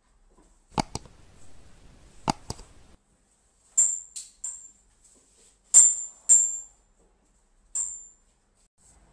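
Sound effects of an animated subscribe button: two sharp mouse-click sounds about a second and a half apart, then a run of short, high bell-like dings that fade quickly.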